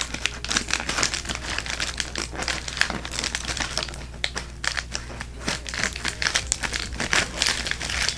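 A mail package being opened by hand: packaging crinkling and rustling in a dense run of short crackles.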